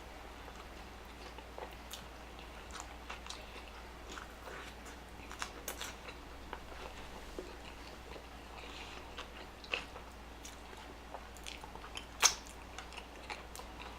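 Close-miked eating sounds: a person biting and chewing fast food, with soft wet chewing and scattered crisp crunches and clicks, one sharper click near the end.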